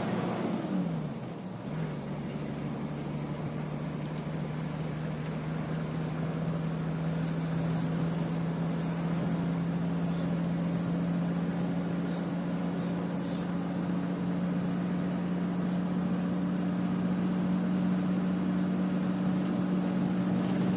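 Drone of a moving vehicle's engine heard from inside the cabin, with road noise beneath it. The pitch drops about a second in, then holds steady and rises slowly.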